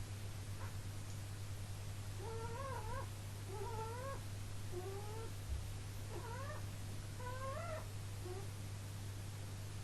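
Pet rabbit snoring in its sleep: a squeaky, wavering whine on each breath, about six in a row roughly a second apart, over a steady low hum.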